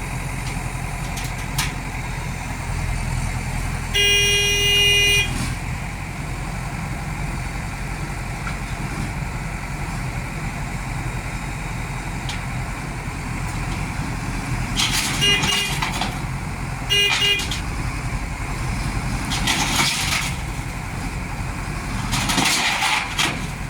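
Heavy diesel engine running steadily, with a vehicle horn sounding one long blast about four seconds in and two short toots later on. Two short bursts of hissing come near the end.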